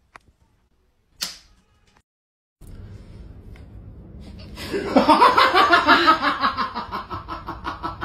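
A person laughing hard in rapid pulses, starting about five seconds in over a low steady background noise. Before that, near silence broken by one brief sharp sound.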